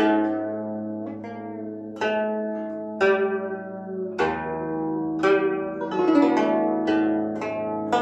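A guzheng, the 21-string Chinese zither, played solo: plucked notes one or two a second, each ringing on as it fades. Some notes are bent in pitch by pressing the string down on the far side of the bridges, and a deeper note joins about four seconds in.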